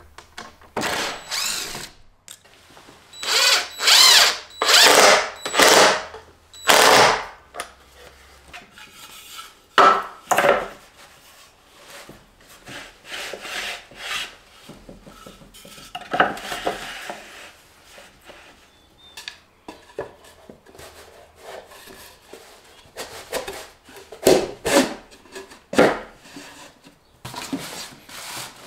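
A cordless drill runs in several short bursts of about a second each, driving screws into a wooden rail. This is followed by a long stretch of quieter rubbing strokes of hand work on wood, with a few sharper knocks near the end.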